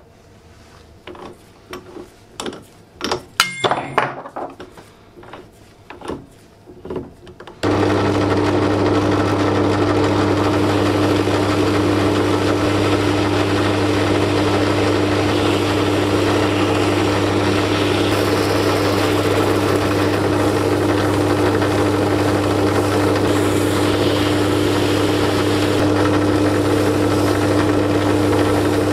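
Clicks and knocks as a nail is fitted into a drill press's keyed chuck and tightened, then about seven seconds in the drill press motor switches on and runs at a steady speed with a constant hum. The spinning nail is held against a sanding sponge and an abrasive foam pad, adding a light rubbing over the motor.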